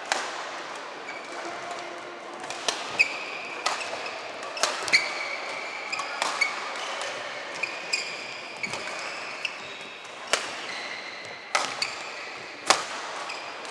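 Badminton rally: sharp cracks of rackets striking the shuttlecock, about a dozen irregularly spaced hits, with brief squeaks of court shoes on the floor, echoing in a large sports hall.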